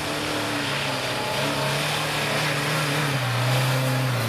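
Engines of a Lada Niva and a Chevrolet Niva running under load as the off-roaders drive through wet slush and mud, the nearer Lada Niva passing close by. The engine note steps down slightly about three seconds in.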